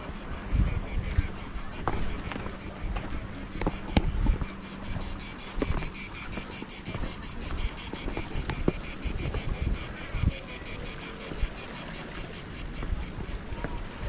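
Cicadas singing in chorus: a fast, even pulsing high buzz that swells a few seconds in and fades near the end, over wind rumbling on the microphone.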